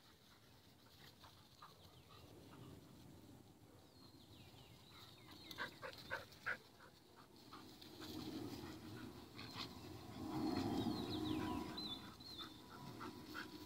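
A dog panting, with birds chirping faintly and a few sharp clicks about six seconds in.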